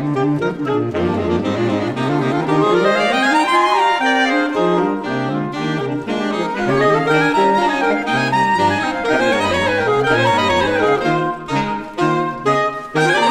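Soprano, alto, tenor and baritone saxophones playing together, several lines moving at once. The playing breaks up into short gaps near the end.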